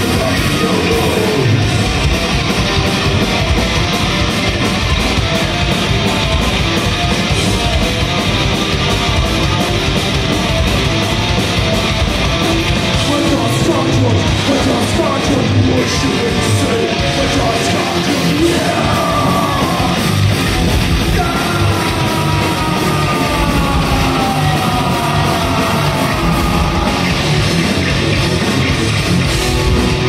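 Heavy metal band playing live: distorted electric guitars, bass and fast drumming with vocals, loud and unbroken. In the second half, high notes slide up and down over the band.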